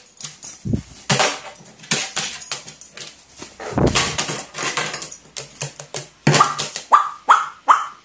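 A pet crow's wings flapping and feet scuffling on a wooden tabletop, then, from about six seconds in, a quick run of about five short 'wa' caws.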